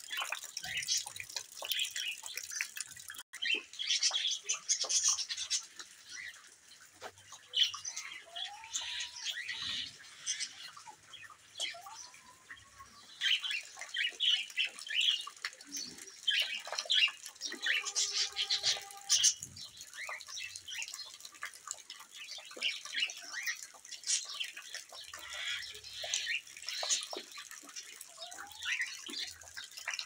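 Small parrots chirping in quick, irregular high peeps, with a few lower rising calls from the chickens and one longer held chicken call a little past halfway. Rain drips in the background.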